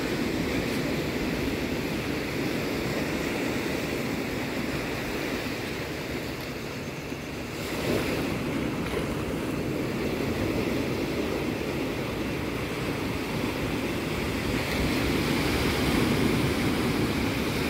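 Sea waves washing ashore: a steady rushing surf that swells about eight seconds in and again near the end, with wind on the microphone.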